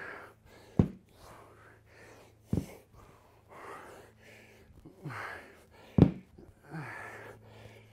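A man breathing hard under exertion during side-plank dumbbell snatches: repeated loud inhales and exhales, with a short, sharp forceful exhale about every two seconds, one with each rep.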